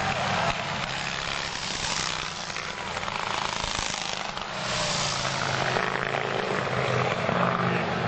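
Antique racing motorcycles running past on the track, the engine sound swelling and fading as bikes go by, several times.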